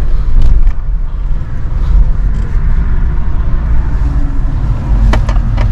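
Steady low rumble of a car's engine and tyres heard from inside the cabin while the car drives slowly.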